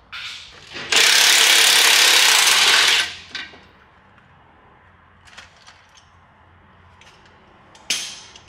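A power tool runs for about two seconds, loosening a rusted exhaust bolt under the truck, followed by a few light clicks and a sharp knock near the end.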